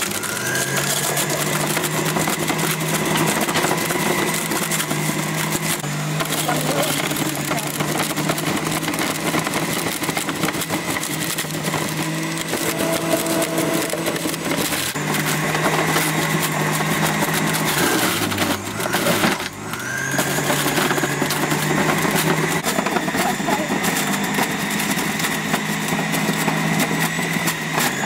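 Electric centrifugal juicer running, its motor whining steadily while it shreds carrots pushed down the feed chute. About two-thirds of the way through, the motor slows briefly, then spins back up.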